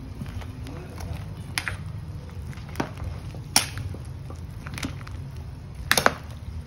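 A metal ladle stirring a pot of soup, clinking against the metal pot: a handful of sharp knocks spaced a second or so apart, the loudest near the end, over a steady low rumble.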